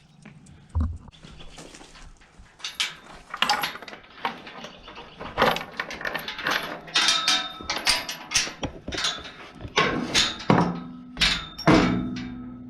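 Jersey calf moving about, making irregular knocking and clattering, several knocks a second, busier and louder in the second half.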